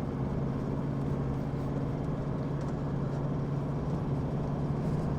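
Car engine and road noise heard from inside the cabin while driving: a steady, even drone with no change in pitch.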